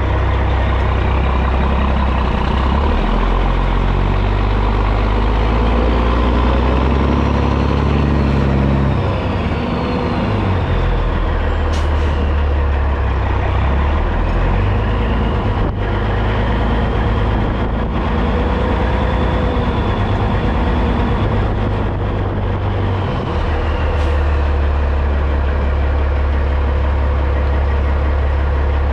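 Big-rig diesel, the CAT C15 in a Peterbilt 379, running under load right beside its exhaust stack. Its revs rise and fall over the first half as the truck moves, then it settles to a steady run near the end. A faint whistle rises and falls above the engine.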